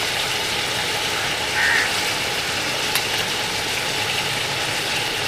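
Goat meat frying in ghee in a large steel pot, a steady sizzling hiss.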